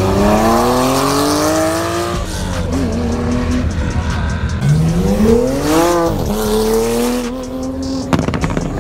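Sports car engines accelerating hard past on a race track: the engine note climbs steadily for about two seconds, then another climbs again, drops sharply about six seconds in and holds steady. A few sharp knocks come near the end.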